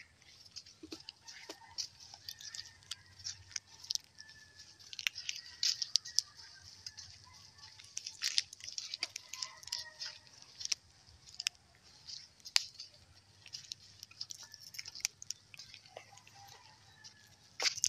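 Footsteps crackling over dry leaves and twigs on a dirt path, an irregular run of sharp little clicks and rustles.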